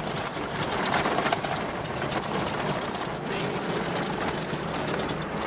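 Vehicle driving on a rough sandy track, heard from inside the cabin: steady engine and tyre noise with rattling as it jolts over the uneven surface, and a short cluster of knocks about a second in.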